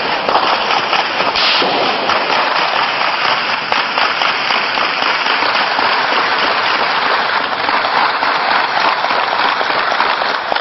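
Sustained gunfire in a crossfire exchange: a dense, unbroken crackle of many overlapping shots at a steady loudness.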